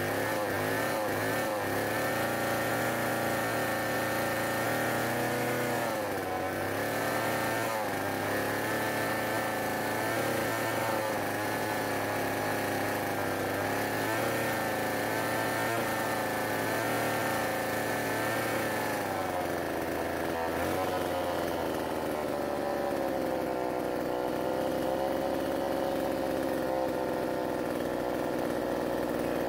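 Shingu SP4800 two-stroke chainsaw engine running steadily after a piston, piston ring and cylinder replacement. Its speed wavers up and down a little several times.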